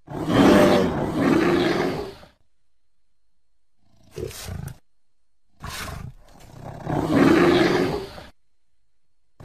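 Triceratops roar sound effects, a designed creature call: a long roar lasting about two seconds, a short grunt about four seconds in, then another long roar of about two and a half seconds, with silence between the calls.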